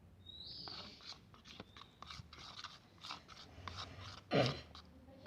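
Small clicks, taps and rustles of hands handling slime-making materials and containers, with one louder short sound about four seconds in.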